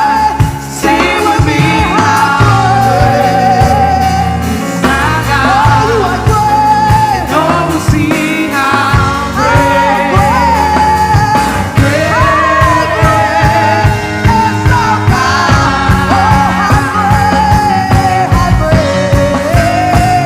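Live worship band playing with singers, drums and bass.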